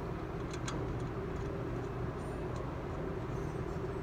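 Steady low machine hum, unchanging, with two or three faint metallic clicks about half a second in.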